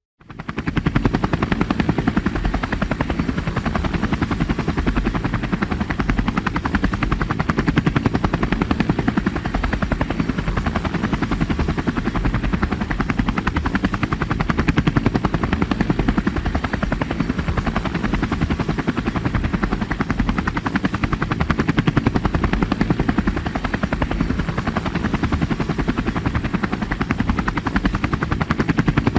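Helicopter in flight: a fast, steady rotor beat over a high turbine whine, starting abruptly just after the start and holding at an even level.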